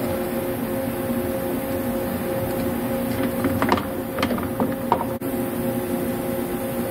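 Steady hum of running workshop machinery, with a cluster of sharp metal clinks and knocks a little past the halfway point as a steel workpiece is seated against the lathe chuck jaws and the chuck key is fitted.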